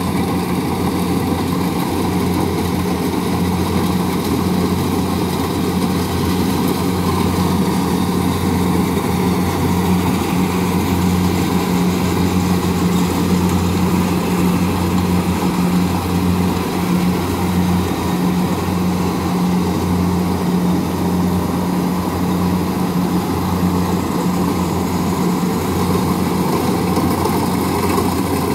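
Kubota rice combine harvester running steadily under load as it cuts rice, its diesel engine giving a steady low drone over dense machine noise.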